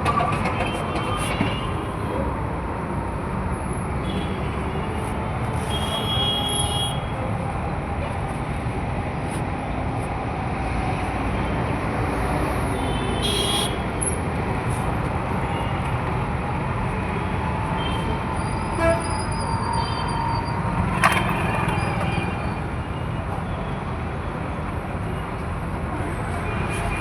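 Busy road traffic: a steady rumble of engines and tyres, with vehicle horns tooting now and then and a sharp knock about 21 seconds in.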